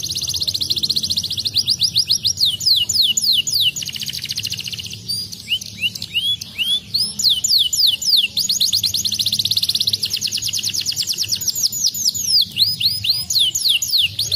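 Domestic canary singing: long, very fast trills alternating with runs of separate quick downward-sweeping whistles, high-pitched and almost without a pause.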